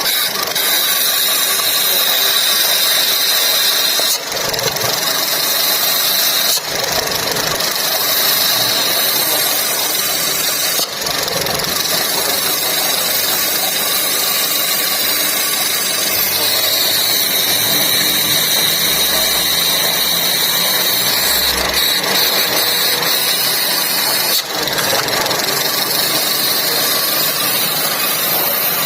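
Seat Toledo engine idling with a steady high-pitched shriek over the engine noise, a sound like a screaming bearing, which stops and starts again at a few abrupt breaks. The cause is a failed valve in the crankcase oil separator, clogged by oil deposits, letting manifold vacuum draw air through the engine and making the idle uneven.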